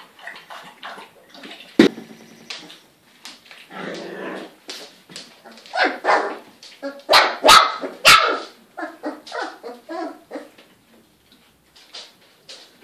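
Young Goldador puppies yipping and barking in many short, high calls, loudest and thickest between about six and eight seconds in. A single sharp knock sounds about two seconds in.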